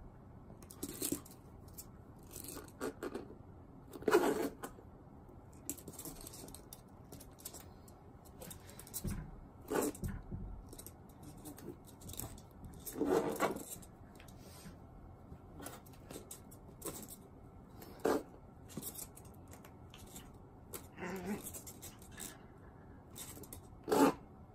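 Scattered short taps and scuffs of a hand patting a vinyl floor mat and a Shiba Inu puppy's paws scrabbling on it in play. Louder ones come about four, thirteen and twenty-four seconds in.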